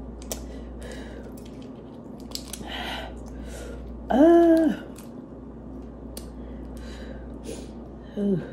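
Boiled head-on shrimp being peeled by hand: short wet cracks and squishes of shell coming away. A loud drawn-out vocal sound from the eater comes about four seconds in, a reaction to the spicy sauce, and a short one near the end.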